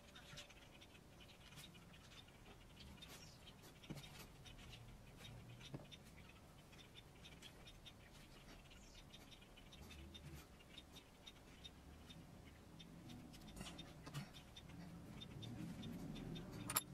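Near silence: faint room tone with scattered light ticks, a low rumble building near the end, and a sharp click just at the end.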